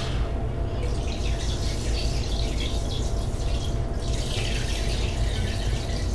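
Lemon squeezed by hand over a pot of water, its juice dripping and trickling into the water in uneven spurts. A steady low hum runs underneath.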